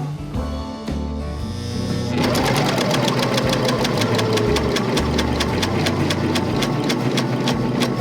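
Juki MO-1000 overlock machine (serger) starting up about two seconds in and sewing with a fast, even clatter, over background music.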